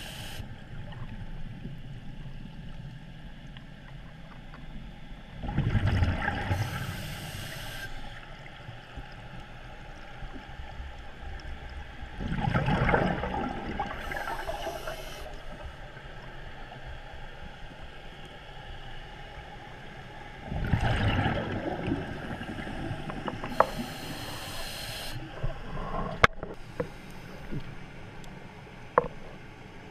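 Scuba diver's regulator breathing heard underwater through a GoPro housing: three long bursts of exhaled bubbles about seven to eight seconds apart, each with a brief regulator hiss, over a low steady rumble. A few sharp clicks near the end.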